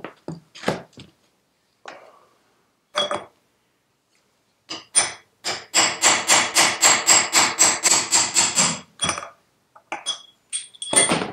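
Hammer striking a steel drift to drive a wheel bearing out of a BSA Bantam rear wheel hub, each blow a sharp metallic clank with some ring. A few spaced blows come first, then a rapid run of about five blows a second for around three seconds, then a few more near the end.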